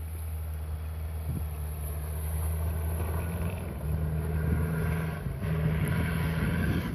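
Opel SUV's engine running under load as it pulls through snow, getting gradually louder as it approaches.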